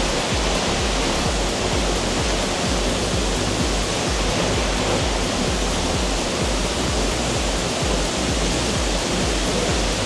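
Waterfall pouring into a rock plunge pool: a steady, even rush of falling water.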